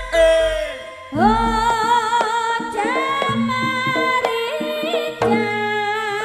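Live Javanese jaranan ensemble music: a long-held melody that glides between notes, over steady drum strokes, with a deep gong tone in the first second or two.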